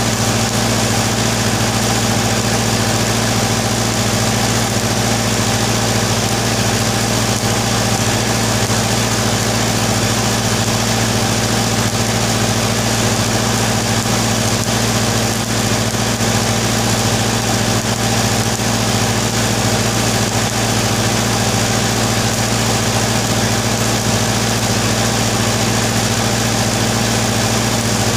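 Continuous electric arc welding on a tractor track roller: the arc's steady crackling hiss over an unbroken low hum from the welding machine or power supply.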